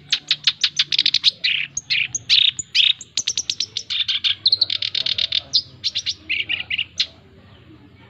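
Male black-browed reed warbler singing a long, fast run of varied, rapidly repeated notes, which stops about a second before the end.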